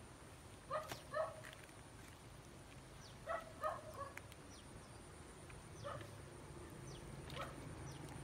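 A dog barking: two short barks about a second in, two more about three and a half seconds in, and fainter single barks later, with faint bird chirps.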